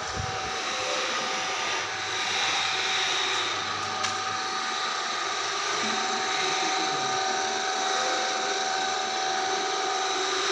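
An electric motor driving a homemade wood lathe, running steadily with an even hum, while a hand chisel cuts the small spinning wooden workpiece.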